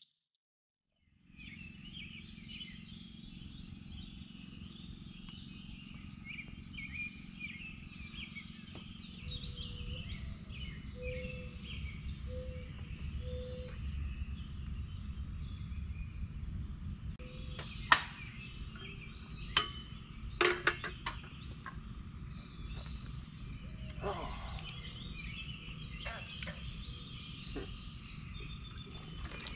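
A chorus of wild birds and frogs calling and chirping over a low steady rumble, with a few short low hoots about a third of the way through and a few sharp clicks about two-thirds through. It starts after a moment of silence.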